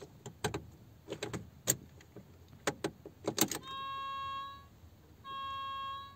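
A few sharp clicks as the ignition of a 2011 Daewoo Nexia is switched on. Then a steady pitched tone sounds twice, each time for about a second: the odd noise the car makes with the ignition on, bleating like a goat.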